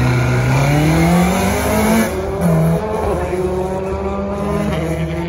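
Rally hatchback's engine accelerating hard from a standing start, revs climbing for about two seconds, then a quick upshift at about two seconds in and the engine pulling on in the next gear as the car moves away.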